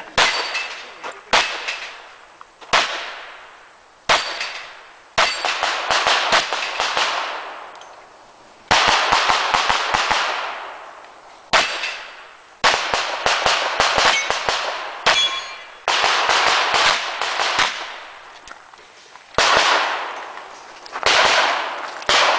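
Revolver shots in a practical-pistol course of fire, single shots about a second apart at first, then quicker strings, each shot followed by a long ringing tail, with the clang of hit steel targets. There is a pause of about three seconds before a last run of shots.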